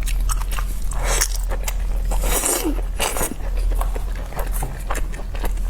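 Close-miked chewing and biting of a large steamed dumpling: a run of quick mouth clicks and smacks, with a few louder bites.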